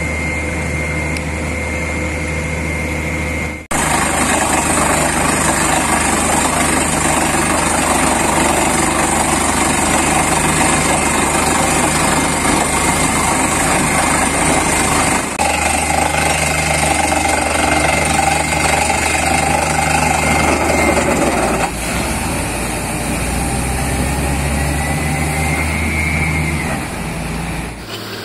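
Truck-mounted borewell drilling rig running at the borehole: a steady diesel engine and compressor drone under a loud rushing hiss. The sound is quieter with a thin steady whistle for the first few seconds, then jumps louder at a cut and shifts again at later cuts.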